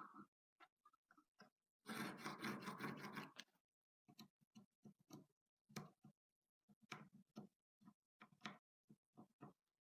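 Faint, scattered clicks and taps of small hard objects being handled, with a longer scraping rattle lasting about a second and a half about two seconds in.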